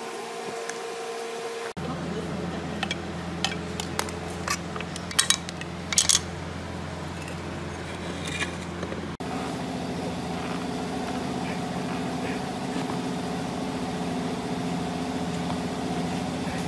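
Metal tools and engine parts clinking sharply during the disassembly of an old four-stroke generator engine, several times about two to seven seconds in, over a steady background hum.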